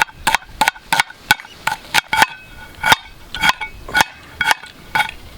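Knife chopping on the upturned metal base of a pressure cooker used as a cutting surface: quick, uneven strokes about four a second, each hit ringing briefly like struck metal.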